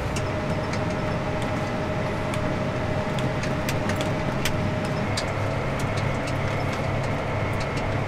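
John Deere tractor running steadily while pulling a loaded grain cart, heard from inside the cab: a low drone with a held whine and scattered light clicks and rattles.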